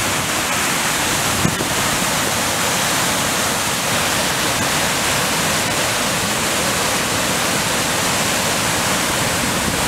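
A flood-swollen river rushing over rapids in a steady whitewater roar, far more water than the river normally carries after heavy rain.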